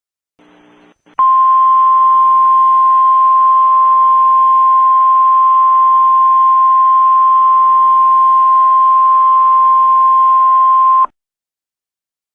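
Weather radio emergency alert tone: one loud, steady high tone held for about ten seconds over radio static, starting about a second in and cutting off sharply. It is the alarm tone that announces a warning broadcast, here a tornado emergency.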